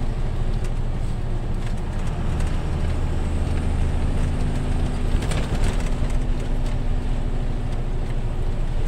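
Truck engine running steadily on the move, heard from inside the cab as a low drone with road noise. A few light clicks come about five seconds in.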